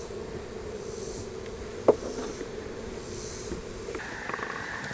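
Honey bees humming steadily around an open hive, with a single sharp knock about two seconds in. A higher-pitched buzz joins near the end.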